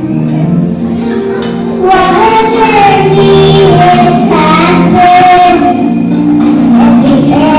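A young girl singing into a microphone, her amplified voice holding and gliding between notes over a backing track.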